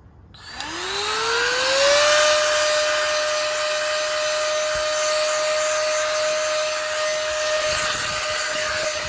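Handheld vacuum cleaner with a brush nozzle switched on, its motor whine rising in pitch over about a second and a half, then running at a steady pitch over a rush of air as it sucks dust off circuit-board heat sinks.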